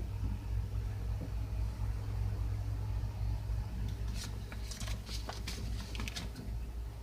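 Light clicks and rattles of tools and door parts being handled, clustered from about four seconds in, over a steady low rumble.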